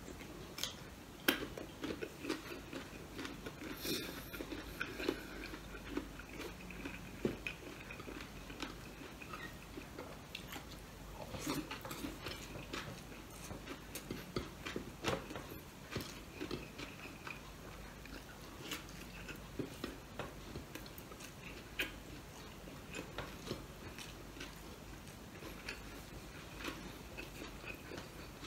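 Close-miked chewing and biting of someone eating, starting on a slice of mango, with many small crisp clicks, smacks and crunches scattered throughout.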